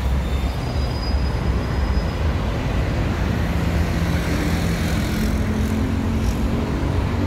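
City street traffic: cars and buses running and passing through an intersection, with a steady low engine drone.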